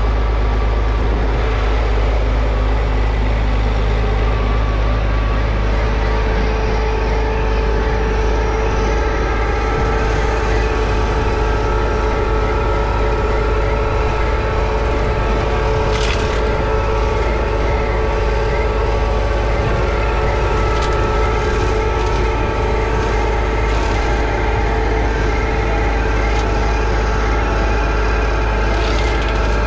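McCormick MTX150's 6.8-litre six-cylinder diesel running steadily under load while its McConnel hedge cutter's flail head works the hedge. A steady whine joins about six seconds in, and a few sharp cracks come from the hedge being cut.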